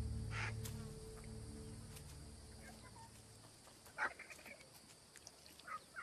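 Low background music fades out over the first two seconds. Then vultures at an elephant carcass give scattered short squawking calls, with a sharp louder call about four seconds in followed by a few quick chirps.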